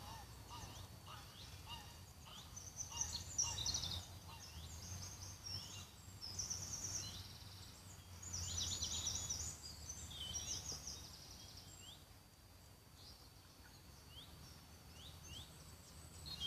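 Birds singing in the open air: many quick, high, downward-sliding chirps and short trills from more than one bird, busiest in the first ten seconds and sparser later. A low steady background rumble runs underneath.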